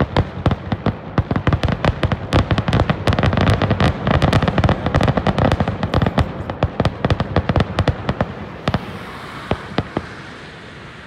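Fireworks going off in a rapid barrage: sharp bangs several times a second over a dense crackle, thickest mid-way, then thinning to fewer, quieter reports in the last few seconds.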